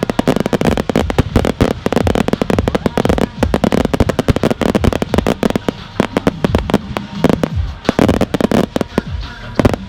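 Consumer fireworks going off in a dense barrage: rapid, overlapping sharp bangs and crackling reports, several a second, without a break.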